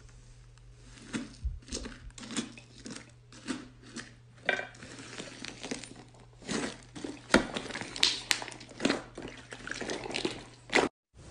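Slime being pressed and squeezed by hand, making an irregular run of short, sticky crackles and pops, a few sharper ones in the second half.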